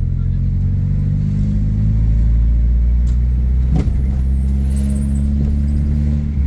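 Car engine and road noise heard from inside the cabin while driving slowly: a steady low rumble with a constant engine hum. A single sharp click sounds a little before four seconds in.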